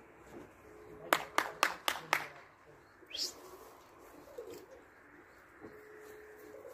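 Domestic pigeons cooing, with five sharp claps in quick succession about a second in and a short rising chirp around three seconds.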